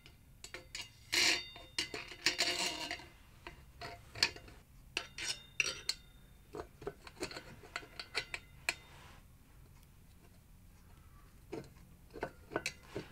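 Steel parts of an improvised bearing press clinking and scraping: the threaded bar is fed through the wheel hub and new bearing, with washers and socket knocking against it. Two longer scrapes about one and two and a half seconds in, then scattered sharp clinks, with a quiet spell near the end.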